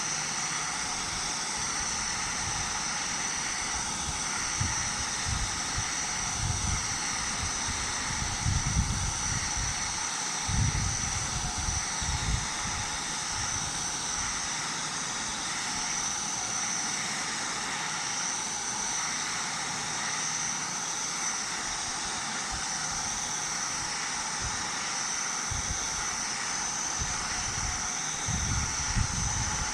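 Steady hiss and crackle of an electric welding arc running on a pipe joint, with uneven low rumbles in the first half and again near the end.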